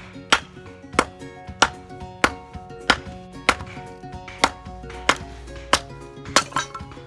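Sharp knocks, about one every 0.6 s, over steady sustained musical notes.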